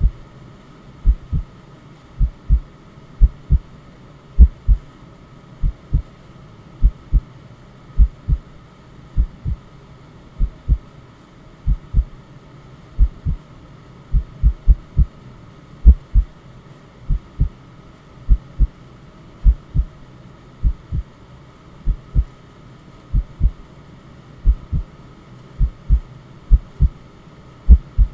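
Heartbeat sound: low double thumps (lub-dub) repeating about once a second, over a faint steady white-noise hum.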